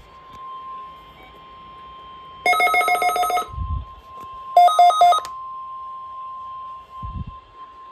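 NOAA Weather Radio warning alarm tone, a steady single tone near 1 kHz, sounding during the weekly test. It is broken twice by louder bursts of a pulsing electronic ringing, about two and a half seconds in and again about four and a half seconds in. Two dull thumps come near the middle and near the end.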